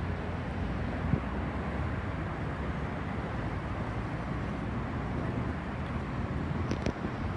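CAF Urbos 100 tram running slowly into a stop, a steady low hum and rumble. There is a faint click about a second in and another near the end.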